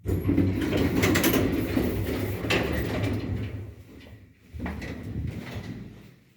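Soviet-era MLZ passenger elevator's automatic sliding doors running along their track over a low motor hum. It happens twice: a longer movement that starts suddenly, then a shorter one after a brief pause.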